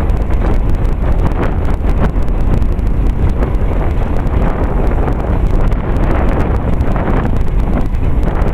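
Wind buffeting the camera's microphone: a loud, steady low rumble with a rough hiss above it and no clear tone or rhythm.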